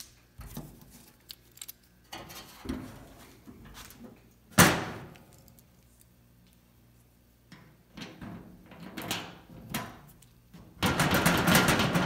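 Steel Maximum 5-drawer mechanics cart being handled: scattered clicks and knocks, then a sharp metallic bang with a ringing tail about four and a half seconds in as the gas-strut lid shuts. A longer rattling clatter of the cart's metal comes near the end.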